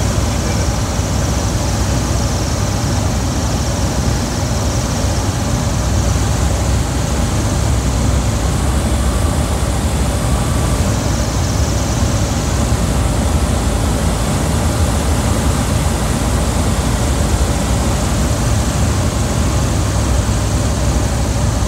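Ultralight aircraft's propeller engine running steadily with rushing airflow, heard from inside the cockpit on final approach to landing.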